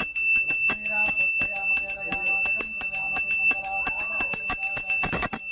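Puja hand bell rung rapidly and without a break in the Ganapati worship, its high ringing tone held throughout. The ringing stops abruptly near the end.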